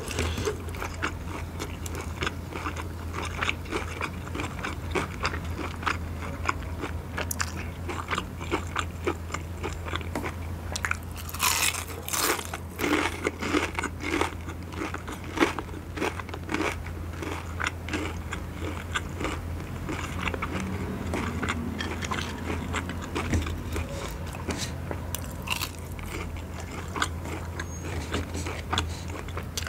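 Close-miked crunching and chewing of crispy fried chicken coating: many sharp crackles throughout, densest about halfway. A steady low hum runs underneath.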